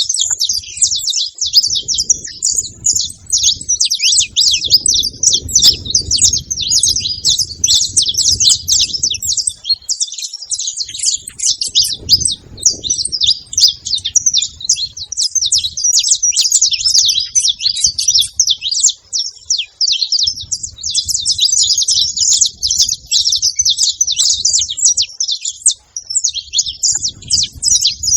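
Saffron finch singing a long, unbroken run of rapid high chirps and trills, with a low rumbling noise coming and going underneath.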